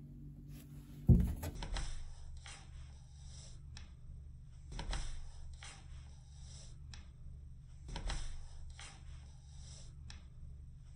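A sudden knock about a second in, then several spells of scraping and rubbing: a cat pawing and pushing at the gap in a wooden door.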